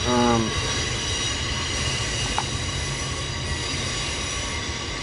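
Steady high-pitched whine made of several even tones over a low hum, with one light click about halfway through.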